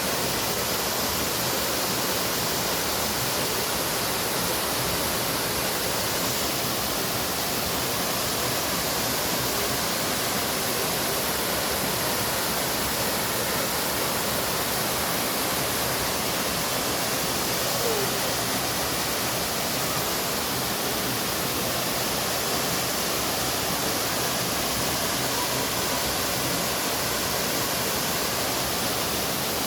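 Waterfall pouring steadily: a constant, even rushing of falling water.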